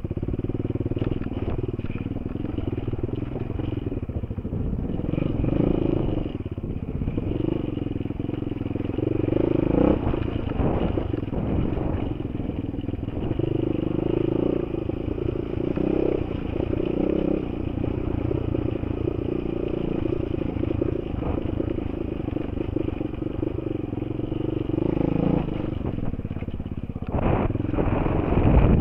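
Single-cylinder enduro motorcycle engine running under load on a rocky dirt trail, the revs rising and falling with the throttle, heard from a helmet camera with wind noise and the clatter of stones and suspension.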